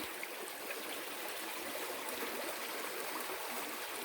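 Stream water flowing steadily over rocks: an even, continuous rushing.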